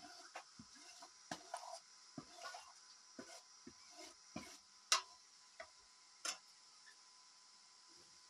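Scattered, irregular sharp clicks and light knocks, about one or two a second, the loudest about five seconds in, over a faint steady hiss.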